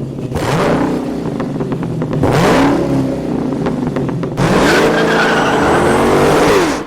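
An engine revving up and down several times over a steady running note, cut off suddenly near the end.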